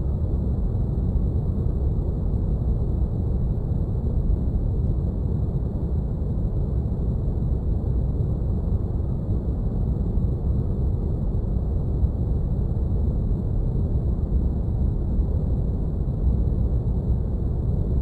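Spaceship-cockpit ambience: a steady, deep rumbling noise like brown noise, with faint steady high tones above it.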